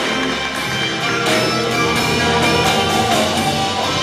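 Live blues band playing, with electric guitar and drums keeping a steady beat.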